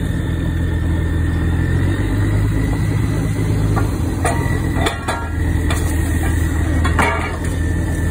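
Drilling rig's engine running steadily, its pitch shifting about two seconds in, with a few sharp metal clanks in the second half as the elevators are handled on the rig floor.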